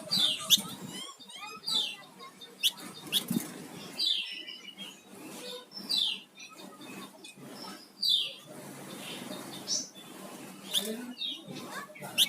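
Flamboyan songbird singing actively: short, sharp, high chirps that slide down in pitch, repeated every second or two, with soft clicks and rustling between the calls.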